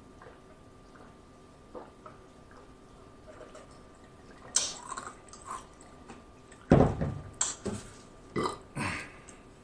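A man drinking water from a glass with faint swallows, then a loud, deep burp a little under seven seconds in, followed by a few shorter mouth and breath sounds.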